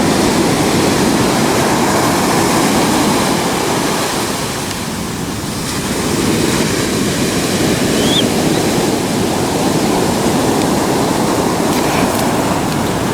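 Ocean surf washing onto the beach in a steady rush that eases briefly about five seconds in, with wind on the microphone.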